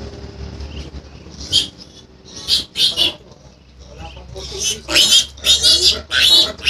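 Piglet squealing in short, shrill bursts while being picked up and held. A few squeals come spaced out at first, then a quick run of them near the end.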